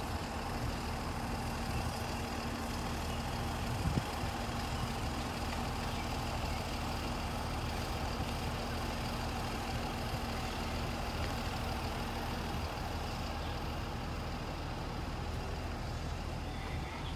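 Steady low mechanical hum of an idling engine, with a single short knock about four seconds in.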